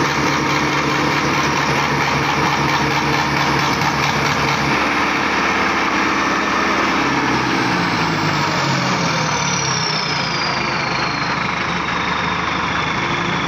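Engine of a modified tractor, with its bonnet off, idling steadily. In the second half a thin high whine glides slowly downward. The engine is being tried on LPG gas.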